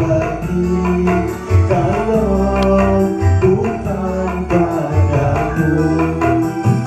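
Karaoke: a man singing into a microphone over a backing track with a steady beat.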